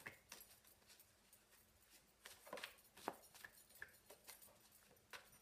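Faint, scattered soft clicks and taps of a deck of tarot cards being handled, otherwise near silence.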